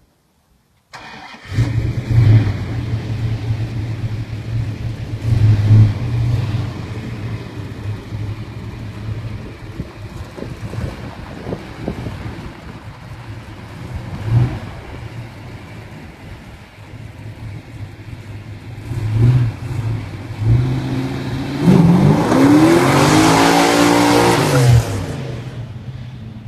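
1968 Plymouth Barracuda's 340 V8 idling with several short throttle blips, then driving off. Near the end it revs hard, climbing to high rpm and falling back over about three seconds, with a loud rushing noise over the engine.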